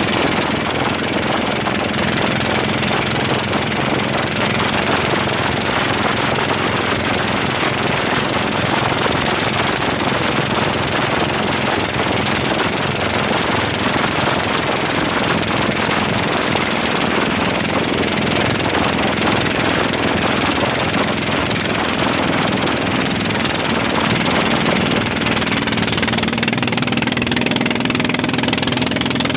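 Engine of a wooden racing pompong running flat out at a steady pace during a speed trial, mixed with the rush of water and spray along the hull, heard from on board.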